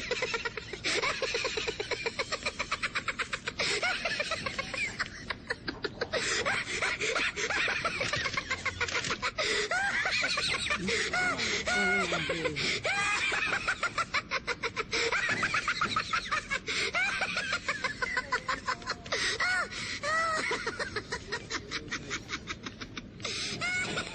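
Laughter, fast and continuous, with high gliding squeals, that starts abruptly and runs on without a break.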